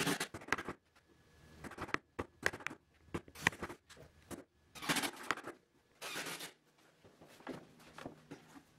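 Hand chisel paring the inside of a plywood mortise: a run of short scraping cuts and small clicks, enlarging the mortise so a leg will fit.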